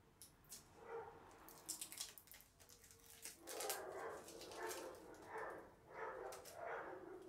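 A dog barking faintly: a regular run of about five barks starting about halfway in. Before that, a few light clicks of hands handling the bike's plastic rear light and rack.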